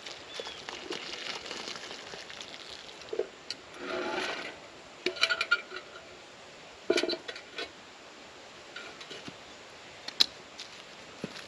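Metal camp cookware being handled: a series of irregular clanks and knocks, some with a short metallic ring, the sharpest one near the end.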